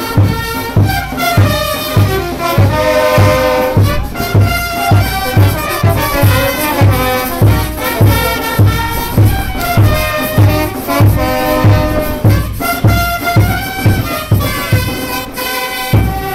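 Brass band music for a festival dance, with the horns carrying the melody over a steady bass drum beat about twice a second.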